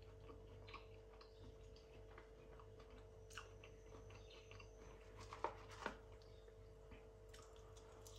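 Near silence: a person quietly chewing food, with faint soft clicks of fork and mouth and two slightly louder clicks a little past halfway, over a steady low hum.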